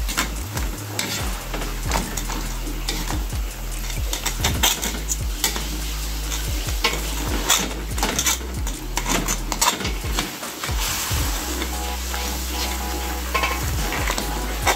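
Metal spatula scraping and knocking against a wok as crab halves and black beans are stirred, with the sauce sizzling underneath.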